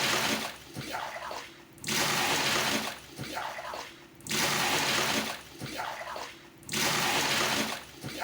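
A water dipper scooping from a traditional Indonesian bathroom tub (bak mandi) and pouring the water out, over and over: a loud splashing pour of about a second, then a quieter scoop, about every two and a half seconds, four pours in all.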